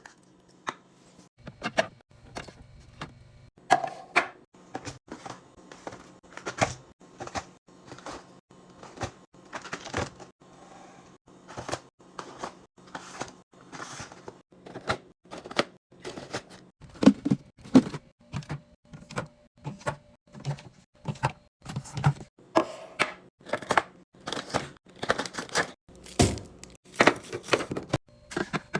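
Irregular clacks and knocks of containers being set down, slid and handled while a fridge is restocked, one to three a second.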